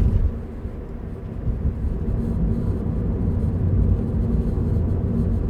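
Steady low buzz from the driver's side door speaker of a 2014 Scion FR-S, heard inside the cabin over the engine idling in neutral. The buzz comes on only with the foot off the gas pedal.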